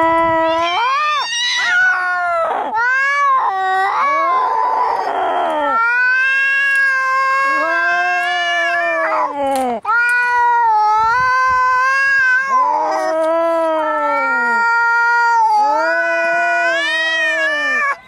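Domestic cats caterwauling in an angry fight: long, drawn-out yowls that waver and bend in pitch, one after another. A harsh, noisy burst comes about four seconds in.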